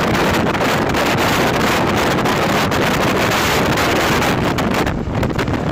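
Wind buffeting the microphone over the steady running noise of an express passenger train, recorded from aboard the moving train. The wind eases briefly about five seconds in.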